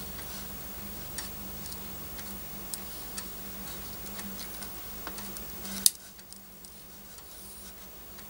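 Light scattered clicks and taps of fingers handling a Samsung Galaxy A11 replacement display assembly in its aluminium frame, with one sharper click about six seconds in. A steady low hum runs underneath.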